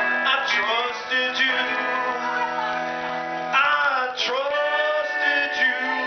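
A live band playing: electric guitars and drums, with a voice singing over them.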